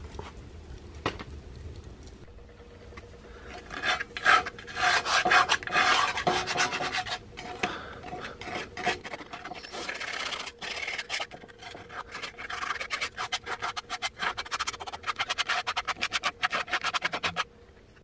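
Handheld rasp grater being stroked quickly and repeatedly, a scratchy rasping that starts about three seconds in. It settles into a fast, even rhythm in the second half and stops abruptly just before the end.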